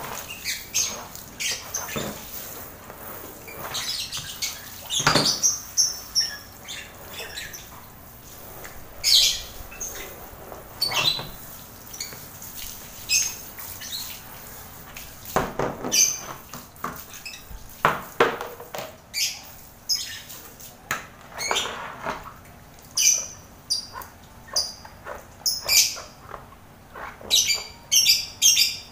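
Lovebirds calling in short, shrill chirps and squawks, scattered irregularly with a few louder calls, over the faint hiss of a garden hose spraying water onto a metal cage tray.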